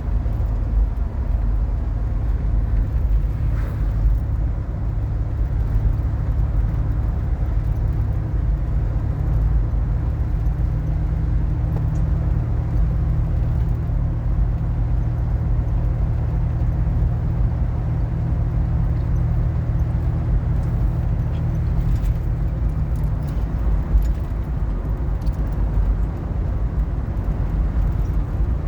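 Steady low road rumble of a car being driven, heard from inside the cabin.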